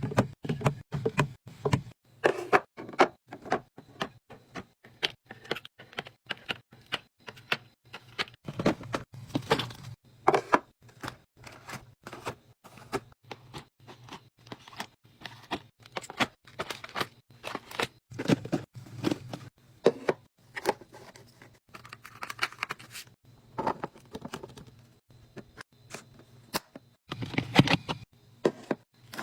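Irregular quick clicks, taps and knocks of small objects and packaging being handled and set down, with a few heavier thumps scattered through.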